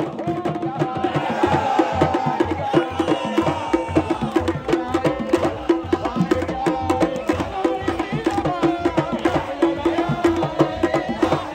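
A crowd of supporters singing a chant together over a steady, rhythmic beat of drums.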